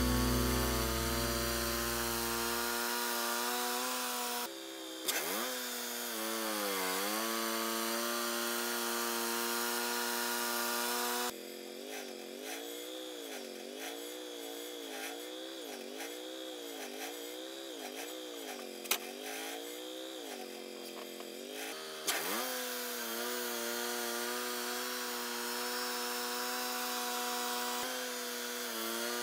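Wood-Mizer LT35 portable band sawmill running and cutting a log. Its engine holds a steady note, sags and recovers once, then wavers up and down over and over for about ten seconds mid-way before steadying again.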